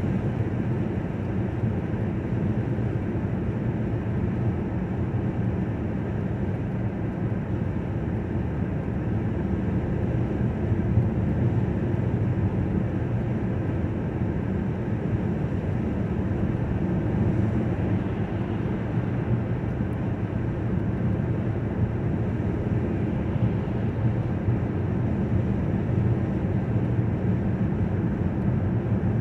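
Steady drone of a car's engine and tyres on the road, heard from inside the cabin while driving at speed.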